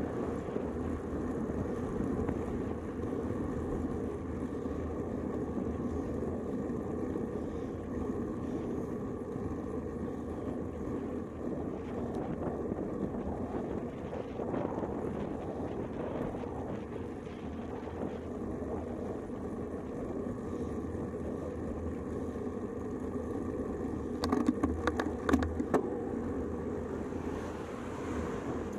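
Steady wind noise on the microphone with road noise from a moving road bike, and cars passing. Near the end a quick run of several sharp clicks or knocks is the loudest sound.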